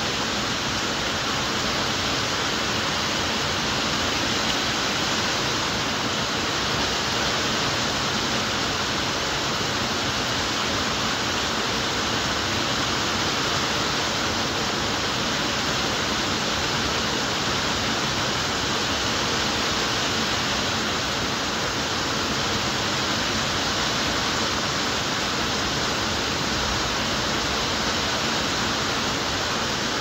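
Steady, even rushing noise, like running water, with no peacock calls or other events.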